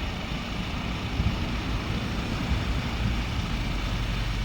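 Hyundai Porter II LPG truck's engine idling steadily, just started by a remote starter.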